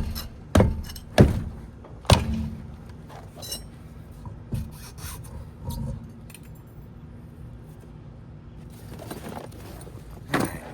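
Hand tools and metal parts clanking while someone rummages through a toolbox. A few sharp knocks come in the first two seconds, then lighter clinks and rattles, and a louder clatter near the end.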